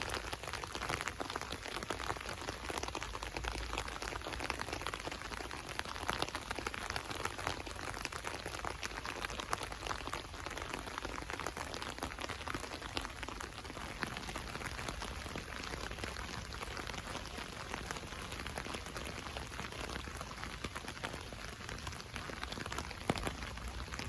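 Rain drops pattering steadily on an umbrella overhead, a dense patter of many small drop ticks.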